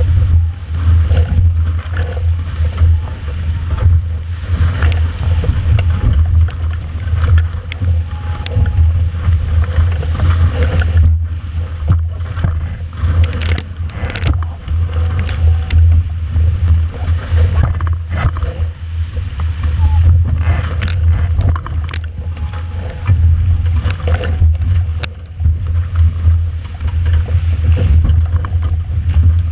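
Wind buffeting a boom-mounted action camera's microphone on a fast-sailing Formula 18 catamaran, a loud steady rumble, with the hulls' rush through the water and sharp hits of spray on the camera, heaviest about halfway through.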